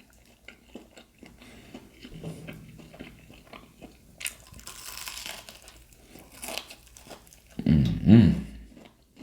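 Close-miked biting and chewing of crispy fried shrimp: scattered crunches and crackles from the fried batter. A short, loud voiced sound from the eater comes near the end.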